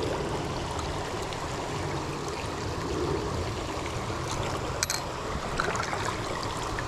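Shallow creek water running and trickling over rocks, a steady rush, with one brief click about five seconds in.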